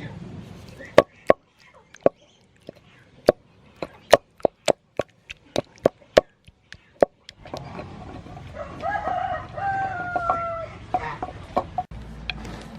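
A kitchen knife chopping tomato on a cutting board: a run of sharp, separate chops, roughly two a second. About halfway through a rooster crows in the background, and a few more chops follow.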